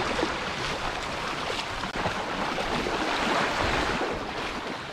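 Sea surf washing onto the shore, a steady rushing with some wind on the microphone, a little louder around the middle.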